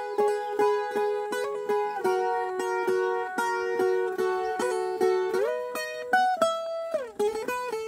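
Viola caipira, the ten-string Brazilian folk guitar, played solo in an instrumental break: a plucked melody picked mostly as two-note harmonies, with a few notes slid up or down the neck.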